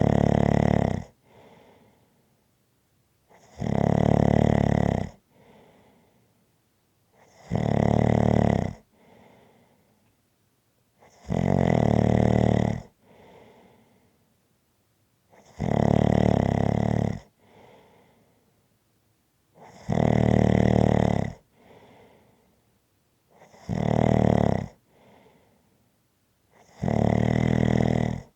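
Slow, regular snoring: eight loud snores about four seconds apart, each lasting a second or more and followed by a faint breath.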